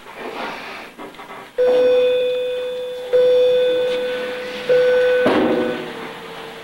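A chime-like tone sounds three times at the same pitch, each note about a second and a half long, cutting in abruptly and fading slowly. A short clatter follows the third note, and soft rustling comes before the first.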